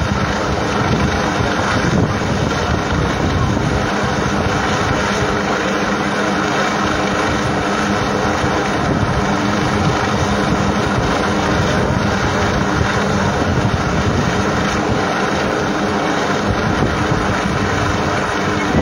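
Military helicopter hovering, its rotor and engine making a steady drone with a low hum, mixed with wind buffeting the microphone.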